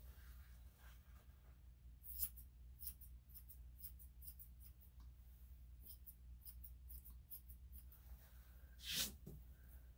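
Grooming scissors snipping a long-haired Chihuahua's coat: a run of quick, faint snips, with one louder short noise near the end.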